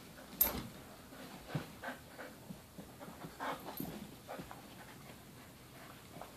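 A puppy and a larger dog play-wrestling: panting and short, irregular dog noises. A sharp sound about half a second in is the loudest.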